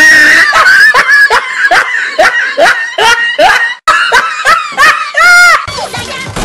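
A character laughing loudly: a rapid run of high-pitched 'ha' syllables about three a second, ending in one held, wavering note near the end.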